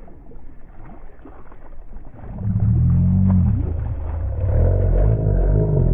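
The kayak's electric trolling motor starts about two seconds in and runs loudly, its pitch shifting up and down. Before it, a hooked fish splashes at the surface.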